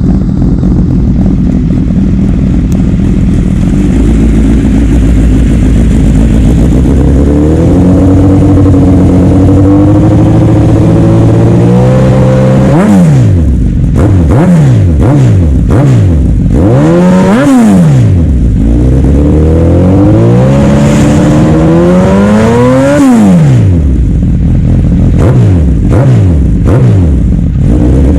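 2016 Suzuki GSX-S1000F's inline-four engine through an M4 GP full exhaust system, just started and idling, the idle creeping up. About halfway through it is revved in a series of sharp throttle blips, one held longer near the end, then several quicker blips.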